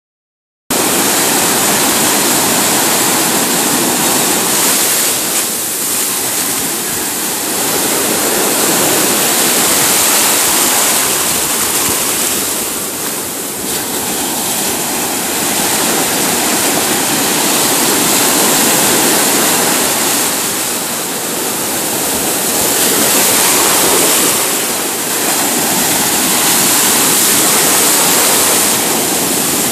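Ocean surf breaking and washing through the shallows: a loud continuous rush that swells and eases a little with the waves.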